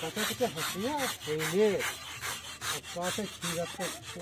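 Knife blades scraping over the gas-singed skin of a pig carcass in rapid, repeated strokes, cleaning off the scorched hair and skin. Voices talk in the background.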